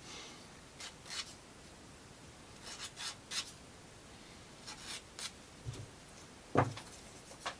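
Wooden plywood model parts being handled and fitted together: short scratchy rubbing sounds of wood on wood, with a single sharper knock about six and a half seconds in.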